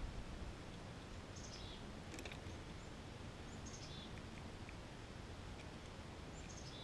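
A bird calling three times, each a short falling chirp, about every two and a half seconds, over steady low outdoor background noise. A couple of faint clicks come about two seconds in.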